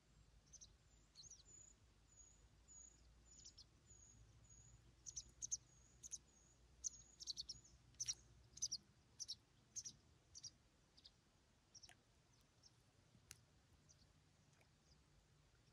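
Small bird singing: a run of short, high chirps and twitters, busiest and loudest in the middle and thinning out over the last few seconds.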